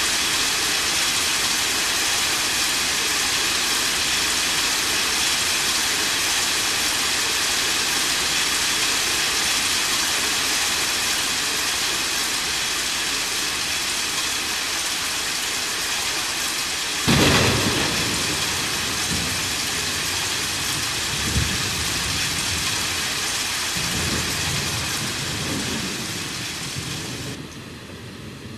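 Steady heavy rain hissing, with a sudden thunderclap about two-thirds of the way through followed by low rolling rumbles of thunder. The rain eases off near the end.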